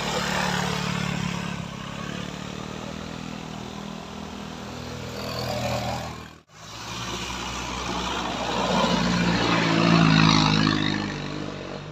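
Vehicle engine labouring and revving hard on a steep uphill climb, struggling to pull its load. The sound breaks off abruptly about halfway through, then the engine revs up again, loudest near the end.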